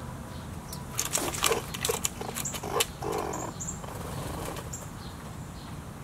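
Wings of a flock of black birds flapping in a flurry of quick strokes about one to three seconds in, as birds fly in and out around a feeder.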